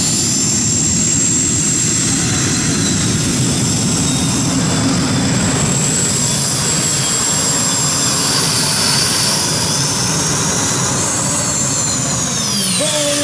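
Modified pulling tractor with three gas-turbine engines running at full power down the track, a loud roar topped by a steady high turbine whine. Near the end the whine rises, then falls away.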